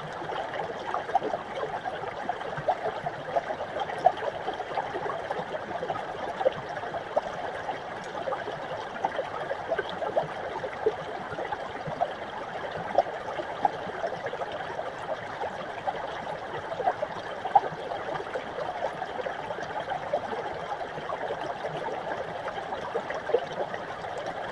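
A small mountain brook trickling and gurgling over rocks, with a steady flow sound full of small splashes.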